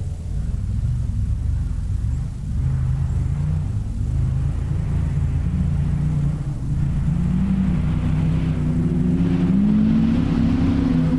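Off-road racing buggy engine running hard, its pitch rising and falling with the throttle and climbing higher in the last few seconds.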